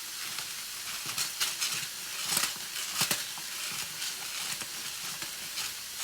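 Mushrooms and minced pork sizzling in a frying pan, with a run of short, sharp crunching clicks over the steady sizzle, loudest about two and a half and three seconds in.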